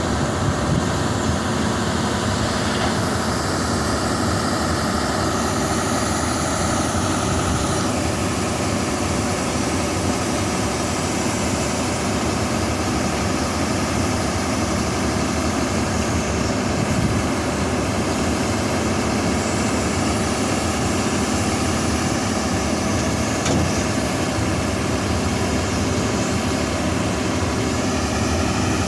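Diesel engine of a Kobelco SK380 crawler excavator running steadily as the machine drives down off a lowbed trailer.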